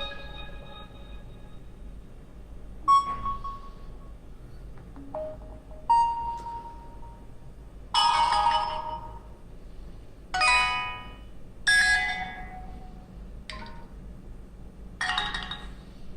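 HTC Desire 610's built-in ringtone and notification chimes played one after another: about eight short electronic chimes, each a second or so long and each a different tune and pitch, with a second or two of quiet between them.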